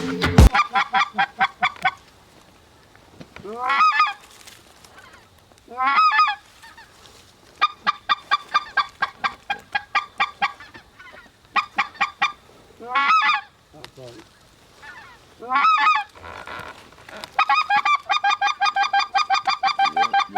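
Goose calling: runs of short clucks at about six or seven a second, broken by several single honks that rise sharply in pitch.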